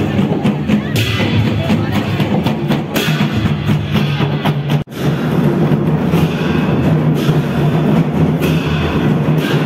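Loud procession music of drums and other percussion, playing continuously over a crowd. The sound cuts out for an instant just before halfway, then resumes.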